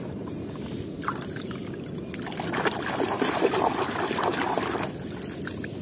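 Water sloshing and splashing as a hand swishes through a plastic tub of muddy, foamy water. It gets louder from about two seconds in and eases off near five seconds, over a steady low rumble.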